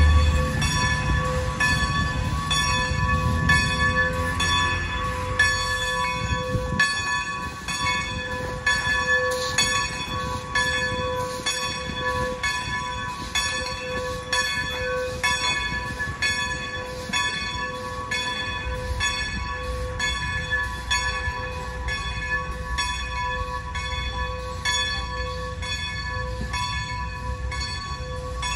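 Steam locomotive bell on the Decapod No. 90 ringing steadily, about one and a half strikes a second, over the low rumble of the slow-moving locomotive.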